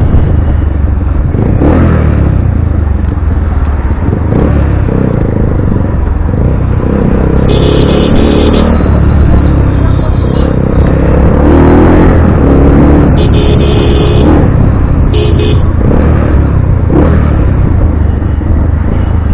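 Single-cylinder engine of a Bajaj Pulsar 180 converted to 220, breathing through an SC Project aftermarket exhaust, running under way through traffic with a low rumble, its revs rising and falling. Short horn honks sound several times, around 8, 13 and 15 seconds in.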